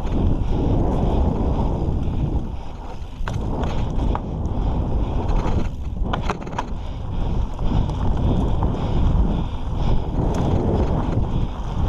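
Mountain bike descending a dirt trail at speed: a steady rumble of tyres on loose dirt mixed with wind on the microphone, with a few sharp clicks and rattles from the bike a few seconds in.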